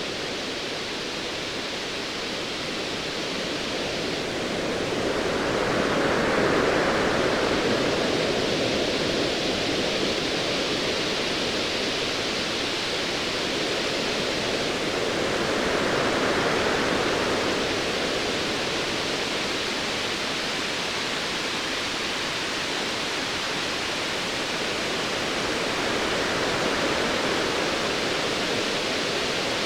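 Ocean waves washing in a steady rush of surf, swelling and easing about every ten seconds.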